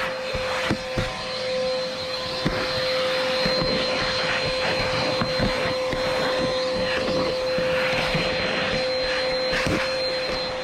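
Vacuum cleaner running steadily on a car's interior: a constant motor whine over the hiss of suction, with occasional short clicks as the nozzle works.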